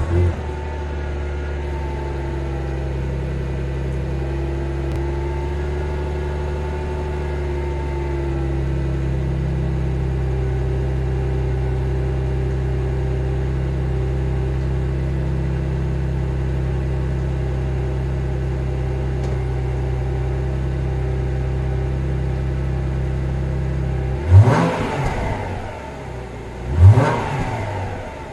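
A 2018 Subaru Legacy 3.6R's flat-six on its stock exhaust idles steadily just after start-up, settling slightly a few seconds in. Near the end it is blipped twice, each a quick rise in revs that falls back to idle.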